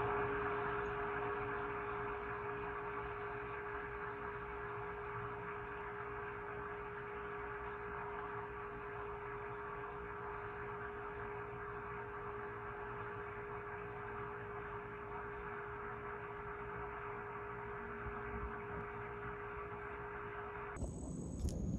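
A steady hum holding one strong tone and several fainter ones over a light hiss, which cuts off abruptly near the end.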